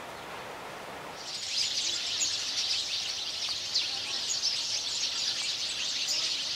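A soft steady rushing noise, then from about a second in a dense chorus of many small birds chirping, high-pitched and busy.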